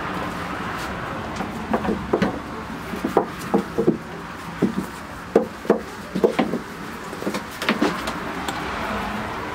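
Irregular light knocks and scrapes of a dog shifting about in a plastic pet bed, a dozen or so over several seconds.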